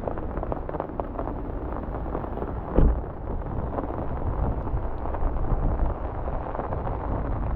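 Strong wind buffeting the microphone in heavy rain: a steady low rumble with many small crackles, and one louder bump about three seconds in.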